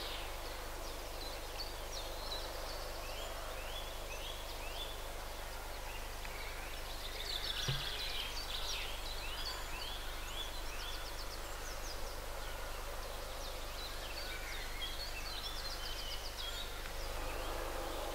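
Small birds singing in the riverside trees: repeated trills and quick runs of short falling notes from several birds, over a steady low hum.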